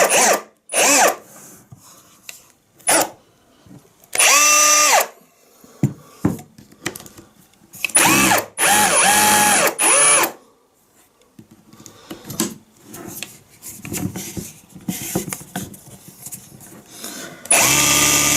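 Milwaukee M18 CHPX cordless brushless SDS-Plus rotary hammer run in short trigger pulls with no load, its motor whining up to speed and cutting off. There are three runs: a short one about four seconds in, a longer one with a change in pitch at around eight seconds, and another near the end. Small clicks come between them.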